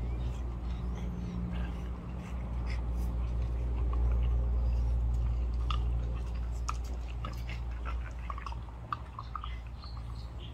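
French bulldogs playing and mouthing at each other, heard as scattered short clicks and small mouth sounds that grow more frequent in the second half, over a steady low rumble.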